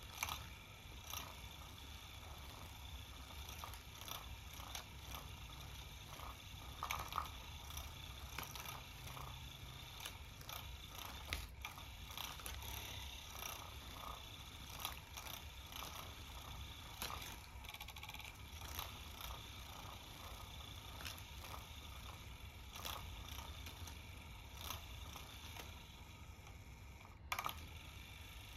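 Motorized cat toy with a spinning feather wand running under a faint steady hum, with scattered light taps, scrapes and clicks as a cat bats at the feathers; a sharper knock near the end.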